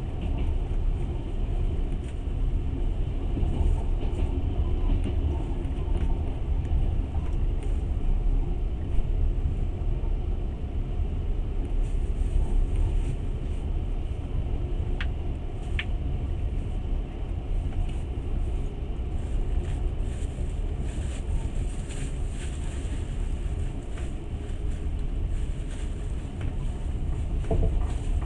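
Steady low rumble of a moving passenger train running along the track, with a couple of faint ticks about halfway through.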